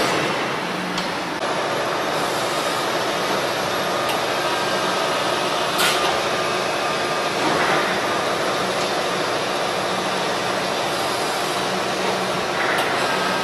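Steady mechanical running noise of a CNC press brake, with a low hum and a few short clunks about one second in, about six seconds in and near the end.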